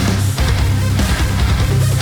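Heavy metal music: distorted electric guitars chugging over bass and drums with crashing cymbals.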